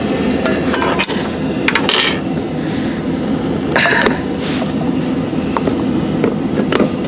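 Dishes and cutlery clinking and clattering on a table as food is set out, in a few clusters of short knocks and clinks, over a steady low hum.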